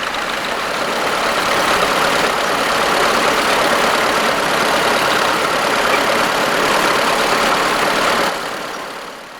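Tractor engine running close by, a loud steady noise that falls away sharply about eight seconds in.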